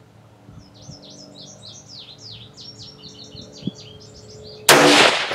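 A songbird sings a run of quick, high chirping notes. Then, near the end, a single loud shot from a 5.56 rifle rings out and echoes away.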